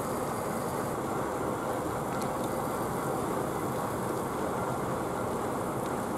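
Steady, even rushing noise of firefighting: a fire engine's pump running while a hose jet plays water onto the burning building.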